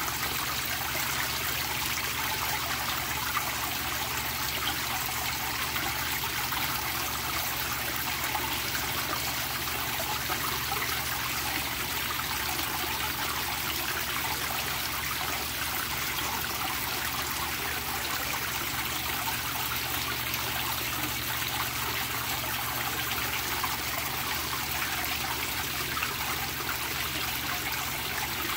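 Water pouring steadily from a pipe outlet and splashing into a koi pond.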